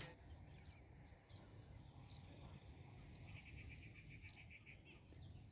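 Faint cricket chirping in a regular high pulse, about four chirps a second, with a brief run of a second, lower chirping call partway through.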